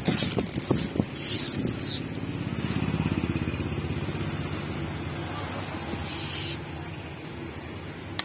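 Protective plastic film being peeled off acrylic letters, crackling and hissing in short bursts over the first two seconds and again for about a second near the middle. Beneath it, a motor vehicle's engine hums, swelling and fading away.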